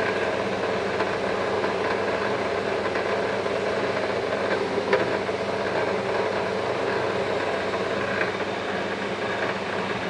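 Electric scrap-wire stripping machine with a 1 HP motor running steadily, a mechanical hum with a light rattle. There is a brief click about halfway through.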